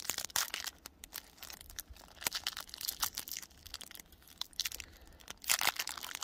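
Foil wrapper of a Pokémon booster pack crinkling and tearing as fingers pick at and peel open its crimped top seal. It comes as short, irregular crackles that grow denser and louder near the end.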